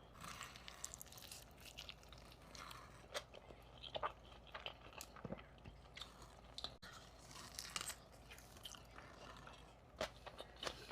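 Close-miked chewing with crisp, crunchy bites: a person eating a burrito, heard as many faint, irregular small clicks and crackles.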